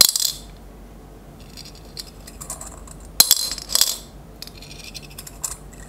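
Small metal balls clicking and rattling inside the clear plastic dome of a handheld magnetic drop-game toy, as they are dragged by a magnet and dropped. Light clicks come and go, with a sharp clink and a short rattle about three seconds in and another click near the end.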